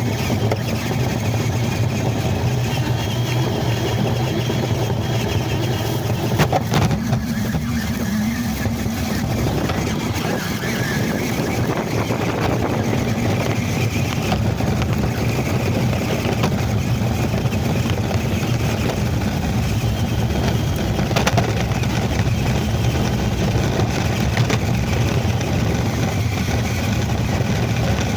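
Ford Raptor RC truck driving, its motor whine and the tyres rattling over rough ground heard from a camera riding on it, under heavy wind noise on the microphone. There are a few sharp knocks along the way.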